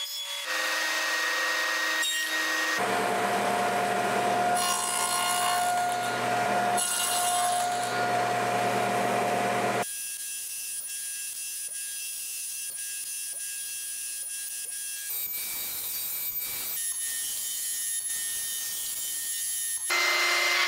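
Sliding table saw running and cutting shallow notches across thin wooden muntin bars. The sound is a steady motor hum with the noise of the blade in the wood, in several stretches that change abruptly.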